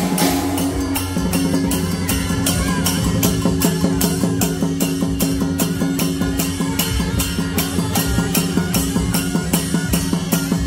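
Teochew big gong-and-drum ensemble playing: barrel drum, gongs and cymbals struck in a steady beat of about four strokes a second, with held notes from the wind players over it.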